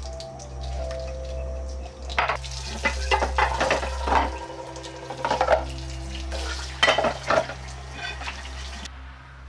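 Washed ceramic plates and dishes clinking and clattering against each other and the dish rack as they are handled, in a string of short knocks that come thickest about two to four seconds in and again near seven seconds, over a steady low hum.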